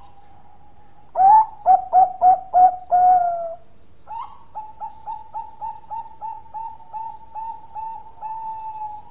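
Bangkok-strain zebra dove (perkutut) singing. A loud phrase opens on a rising note, runs through four quick clipped coos and ends on a drawn-out note. After a short pause comes a softer, longer run of about a dozen rapid coos that ends on a held note.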